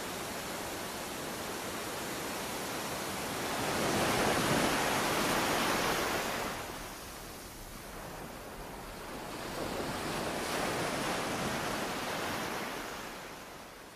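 Small sea waves washing onto a beach, an even rush that swells twice, then fades away near the end.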